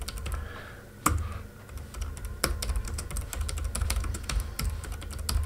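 Typing on a computer keyboard: irregular runs of keystrokes.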